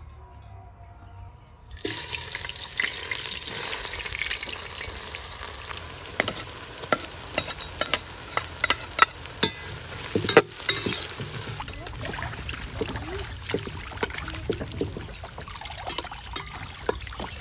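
Sliced onions frying in hot oil in a steel pot, a steady sizzle with many sharp crackles that starts suddenly about two seconds in. Near the end comes water splashing as chicken pieces are rinsed in a basin.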